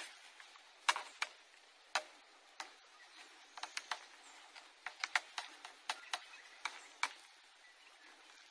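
Irregular sharp clicks and taps of a small hand tool and plastic fittings against a PVC irrigation pipe, about fifteen in all, with the loudest at the very start.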